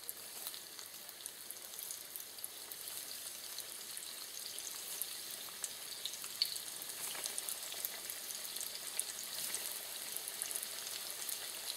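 Spring rolls sizzling and crackling in a wok of oil at medium frying heat, about 160 to 180 °C. The sizzle grows a little louder as more rolls are lowered into the oil.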